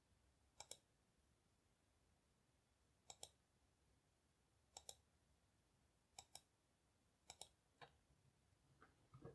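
Faint clicks of a computer mouse button: five clicks spaced one to two seconds apart, each a quick double tick, then a single click and a softer knock near the end.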